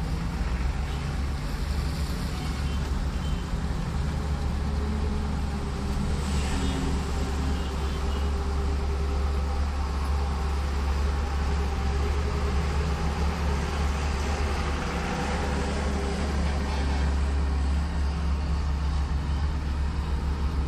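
Steady low rumble of a car's engine and tyres on a wet road, heard from inside the cabin, with heavy trucks and buses running alongside in traffic.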